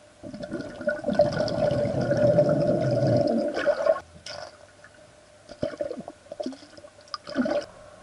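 Water rushing and bubbling as heard underwater in a swimming pool, stirred by a swimmer moving close to the camera: a loud stretch of about four seconds, then a few shorter bursts.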